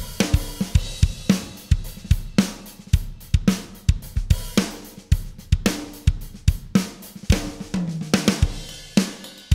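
Sampled drum kit loop from Steven Slate Drums 5 (kick, snare, hi-hat and cymbals) playing a steady groove through a Wes Audio Dione SSL-style VCA bus compressor, engaged at a 4:1 ratio with a 10 ms attack and fast release, pulling about 3–4 dB of gain reduction.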